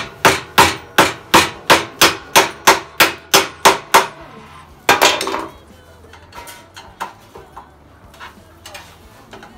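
Quick, even hammer blows, about three a second for some four seconds, each with a short ringing tail, followed by one heavier knock and then scattered light clatter.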